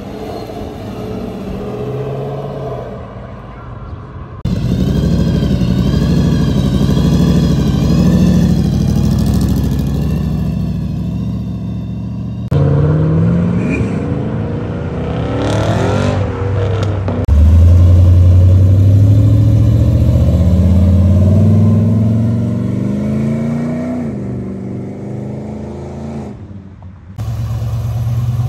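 Chevrolet Camaro engines accelerating away one after another, the last a second-generation Camaro Z28's V8. Each engine note rises in pitch as the car pulls away, and the sound changes abruptly several times where one car gives way to the next.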